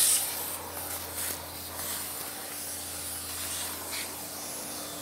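Shop vacuum running, its hose nozzle sucking sawdust and chips off a freshly routed board: a rush of air over a steady motor hum. The suction is loudest right at the start.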